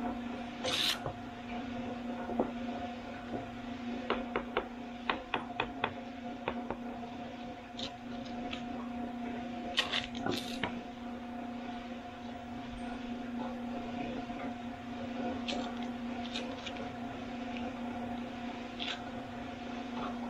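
Sharp taps and knocks of a mason's tool on Belgian block stones being set into place: a quick run of about eight taps a few seconds in, a few more around the middle, then scattered ones. Under them runs a steady machine hum.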